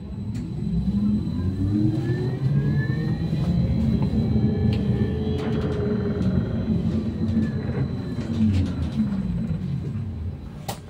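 A UTTZ-6242.01 electric bus's traction motor whines over a low rumble of the bus. The whine rises in pitch as the bus gathers speed, then falls away again. A sharp click comes near the end.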